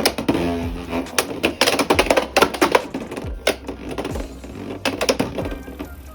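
Beyblade X Dran Buster top spinning in a small Hasbro stadium, with rapid, irregular plastic-and-metal clacks as it keeps hitting the stadium rail. The stadium is too small for how hard it hits.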